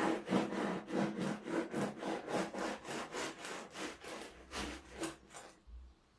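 Knife sawing through a loaf of bread in quick back-and-forth strokes, about three a second, stopping shortly before the end.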